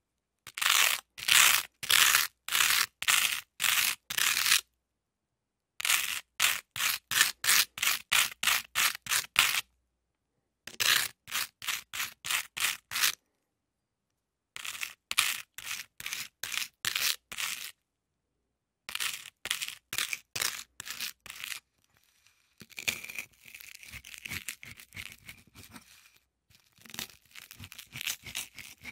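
Knife spreading butter on crisp toast: runs of quick scraping strokes, about two to three a second, with short pauses between runs. Near the end the strokes blur into a rougher, more continuous scrape.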